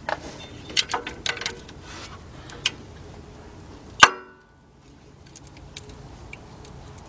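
Metal hand tools (an O2 sensor socket on an extension and swivel ratchet) clicking and clinking as they are set onto an exhaust oxygen sensor, with a few sharp clicks in the first second and a half. One loud metallic clang rings briefly about four seconds in.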